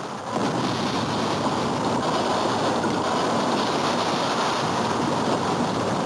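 A steady rushing noise like wind or surf, swelling slightly about a third of a second in: the sustained whoosh of a transformation sound effect.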